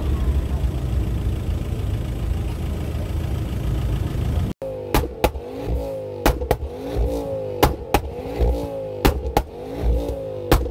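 A car engine rumbling steadily. After a sudden break about four and a half seconds in, an engine is revved up and down again and again, with sharp exhaust pops and bangs cracking as the revs fall.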